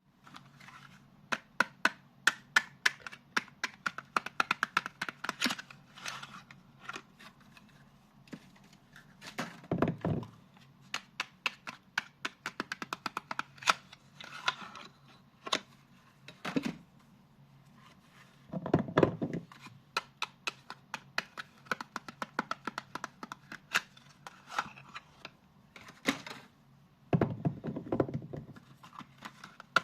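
Soap packaging being opened by hand: a steady run of sharp crinkles and clicks from wrappers and boxes, with three heavier, duller rustles about a third of the way in, two-thirds in, and near the end.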